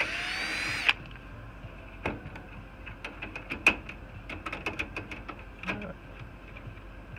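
Cordless drill-driver spinning briefly with a rising whine and stopping with a click as it backs out a screw. This is followed by a string of light clicks and metal knocks as the router's power supply module is gripped and slid out of its steel chassis.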